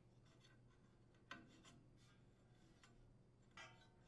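Near silence with faint handling noises: a small click about a second in and a brief rub near the end, as a cord is fed through the spark plug hole into an engine cylinder.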